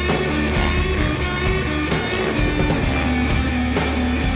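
Rock music with guitar, playing steadily at an even level.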